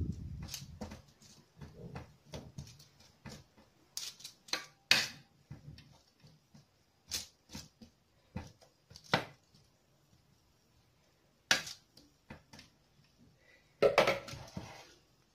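A metal spoon scraping and clinking against a foil-lined baking tray while pushing diced potatoes around, in scattered short scrapes and taps with pauses between them, and a louder crinkly clatter near the end.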